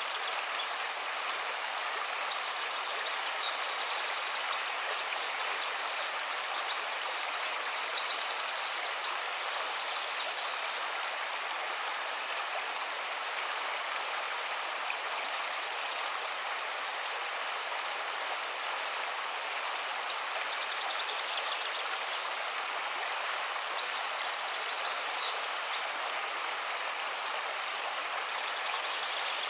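A river flowing with a steady rushing sound. Small birds call over it in short, rapid, high trills that come back every few seconds.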